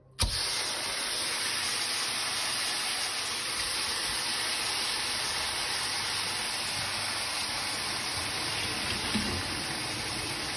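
Marinated chicken breasts sizzling steadily in a hot pan, the sizzle starting suddenly as they are laid in.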